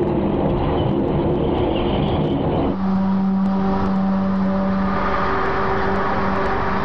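Loud, steady low droning hum with several overtones, from an amateur recording of the mysterious 'strange sounds' reported in the sky; about three seconds in it cuts to a cleaner, steadier drone.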